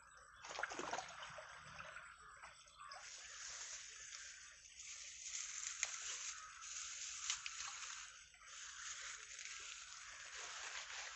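Water rushing and splashing through a narrow irrigation canal, as the strong current presses against a bamboo fish trap. It sets in about half a second in, grows fuller about three seconds in, and a few sharp splashy clicks stand out.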